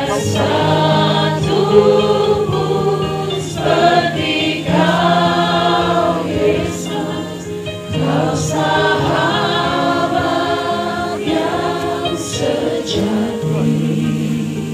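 A choir singing a slow hymn, with sustained low notes held underneath the voices.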